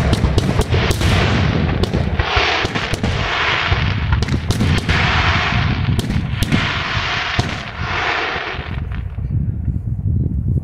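Daytime aerial fireworks: shells bursting with sharp bangs in quick succession, over spells of dense hissing crackle. The barrage thins out about nine seconds in.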